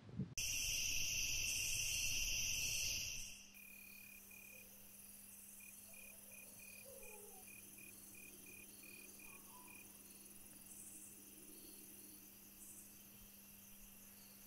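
Insects chirping. A loud, steady high insect drone fills the first three seconds, then drops suddenly to a quieter night bed of crickets chirping in short, evenly repeated pulses over a faint low hum.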